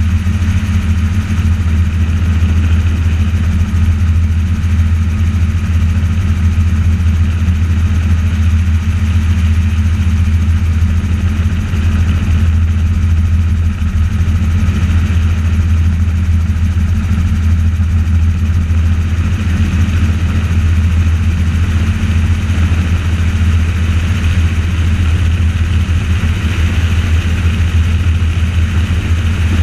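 Helicopter in flight, heard from on board: a steady, loud low drone of engine and rotors with a fainter steady whine above it, unchanging throughout.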